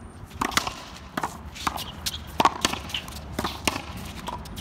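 A racquetball rally on an outdoor one-wall concrete court: a rapid, uneven series of about ten sharp pops as racquets strike the ball and the ball smacks the concrete wall and court.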